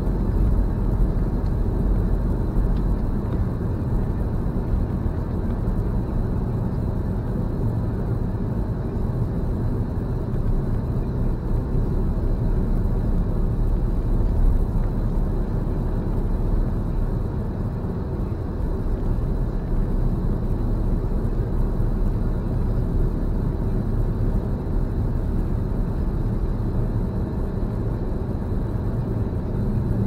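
Steady road noise inside a moving car's cabin: the low rumble of the engine and tyres at an even speed, with a faint steady high whine over it.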